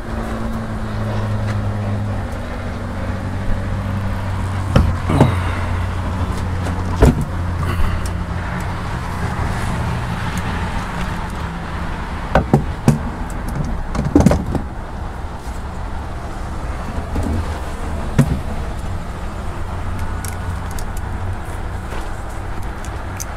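A steady low mechanical hum with a constant noisy wash, broken by a few sharp knocks and clicks, the loudest about halfway through.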